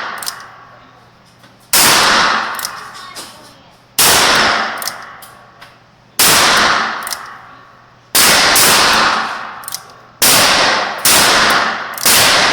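Smith & Wesson R8 .357 Magnum revolver fired seven times: single shots about two seconds apart, then three quicker shots about a second apart near the end, each with a long echoing tail.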